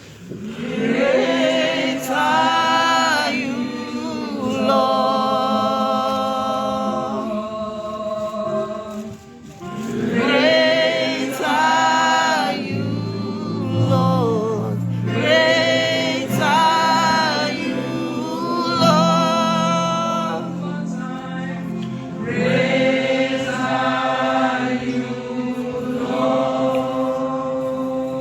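Gospel song sung by a church choir: sung phrases in several voices, coming in waves with short gaps, over steady held backing notes.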